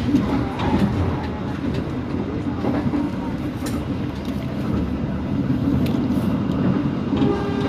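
Dharmawangsa Express passenger train running on the rails: a steady rumble with a few sharp wheel clicks.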